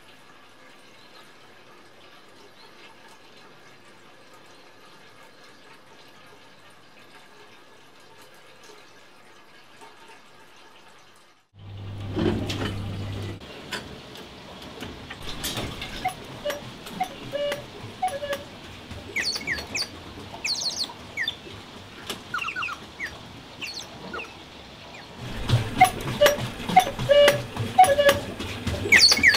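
Faint, steady trickle of water running through the tubes and tanks of a water-powered clock. About eleven seconds in it gives way to louder outdoor sound with many songbirds chirping and scattered clicks, growing louder again near the end.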